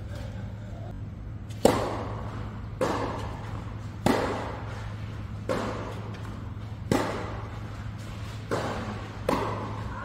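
Tennis balls struck back and forth with rackets in a rally: seven sharp pops, roughly one every second or so, each echoing in a large metal-roofed indoor hall, over a steady low hum.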